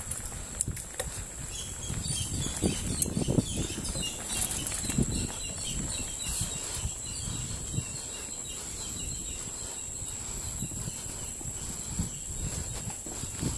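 Mountain bike rattling and knocking over a rough dirt trail, with tyre rumble and irregular thumps from roots and bumps, picked up by a camera mounted on the moving bike. A steady high thin whine runs underneath.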